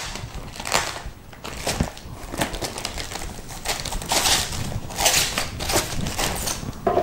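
Plastic packaging bag crinkling and rustling in irregular bursts as hands open it and pull out a slim external DVD writer, loudest in the second half.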